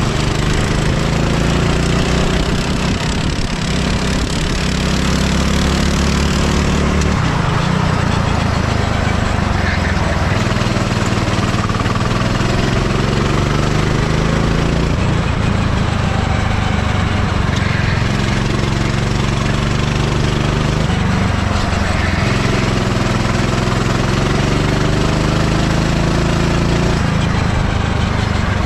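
Kart engine running hard around a lap. The revs climb repeatedly and drop off between climbs, as the kart accelerates out of corners and slows for the next one.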